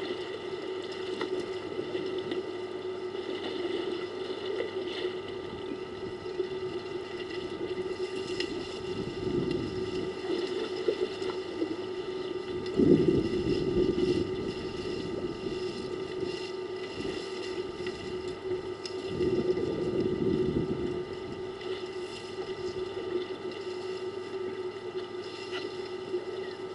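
Elephants splashing and wading in a waterhole, over a steady mechanical hum. The splashing swells louder about a third of the way in, around halfway, and again about three quarters of the way through.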